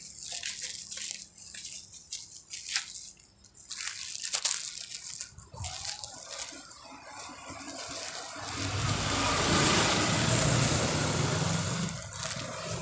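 Street sound: irregular clicks and rustling, then a road vehicle passes. Its noise swells up about two-thirds of the way through and eases off near the end.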